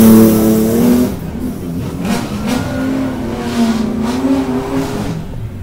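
Alfa Romeo 156 race car accelerating hard away from the start line. The engine is loudest in the first second, then recedes up the road, its pitch climbing and dropping through several gear changes before fading out about five seconds in.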